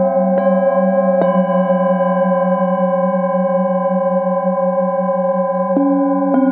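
Metal singing bowls struck one after another with a padded mallet, their tones ringing on and overlapping, the lowest tone wavering slowly. Two fresh strikes come in the first second or so and two more near the end.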